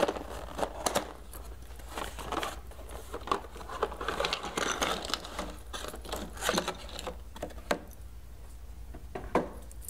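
A cardboard toy box being opened and its plastic pieces handled: scattered clicks and taps with crinkling.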